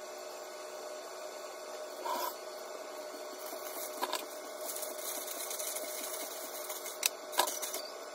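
A sheet of aluminium foil rustling and crinkling as it is spread and pressed down over a cooking pot, with a few sharp crackles near the end.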